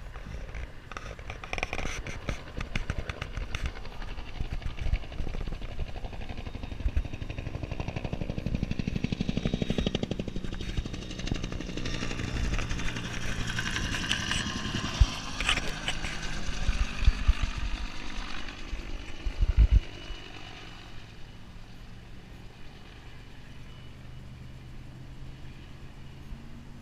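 Helicopter flying low overhead: the rotor's rhythmic beat builds as it approaches, is loudest in the middle with a falling pitch as it passes over, then drops away about two-thirds through. A few sharp low thumps stand out near the end of the pass.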